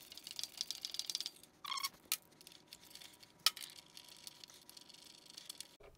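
Rapid metallic clicking and rattling as the motorcycle's pillion peg bracket is unbolted and worked loose from the frame, in two spells with a sharp knock between them.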